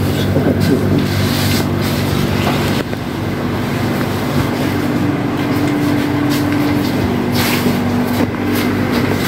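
A steady mechanical hum made of several low, even tones, running over constant background noise.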